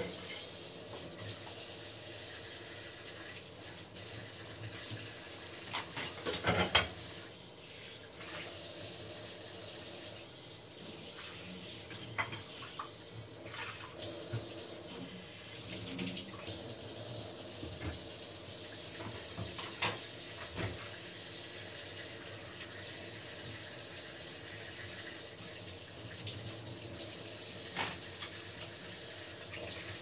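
Dishwashing at a stainless-steel kitchen sink: tap water running steadily into an oval wash basin, with scattered clinks and knocks of dishes. The loudest knocks come in a cluster about six to seven seconds in.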